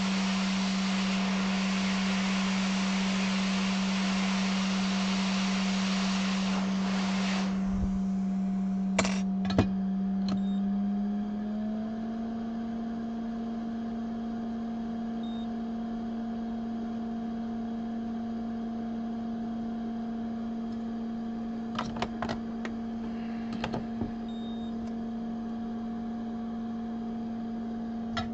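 Hot air rework station blowing on a logic board chip to desolder it: a steady hum under a rushing air hiss. The hiss cuts off about seven seconds in, leaving the hum, which steps up a little in pitch a few seconds later. A few light clicks of tools come in between, and the hiss starts again at the very end.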